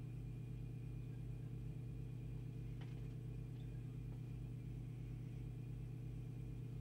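Steady low mains hum, with a ladder of overtones above it, from a powered-up Heathkit HW-12A valve transceiver, its PS-23 power supply and the mains transformers feeding it at half voltage. There is a faint click about three seconds in.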